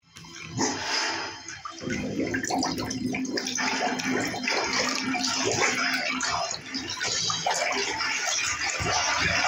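Running, splashing water: a continuous grainy rush with many small splashes.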